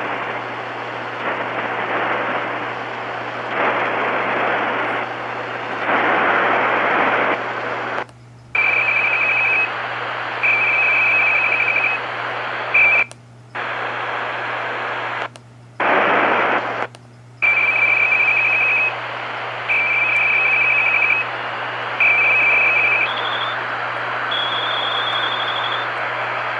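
Shortwave receiver in lower sideband on 4.270 MHz: static hiss over a steady low buzz, cut by several brief sudden dropouts, with short bursts of a high, rapidly pulsing tone again and again after about 9 seconds. The uploader suspects the buzz is image interference from the UVB-76 buzzer station on 4.625 MHz.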